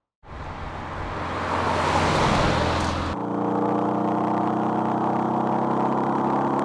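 Porsche 718 Cayman driving: a rush of engine and road noise builds for about three seconds, then cuts abruptly to the engine's steady note as the car comes on at constant revs.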